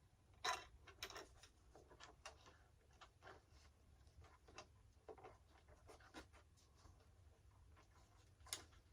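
Faint, scattered rustling and light scraping of small parts being handled, with a sharper tick about half a second in and another near the end.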